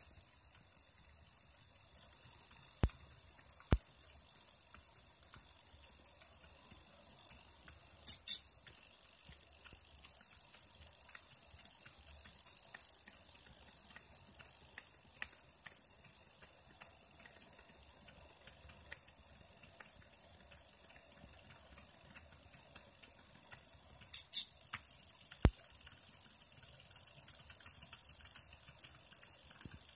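Small homemade pen plotter with a rack-gear drive running as it draws: a faint steady high whine from its motors over a constant patter of small ticks, with a few sharper clicks and short bursts now and then.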